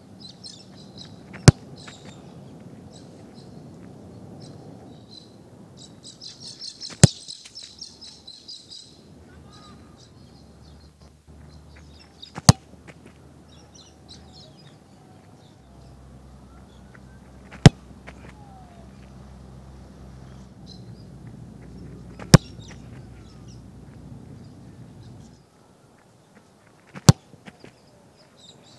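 Australian rules football kicked off the boot in set shots at goal, six kicks about five seconds apart, each a single sharp impact. Birds chirp in the background.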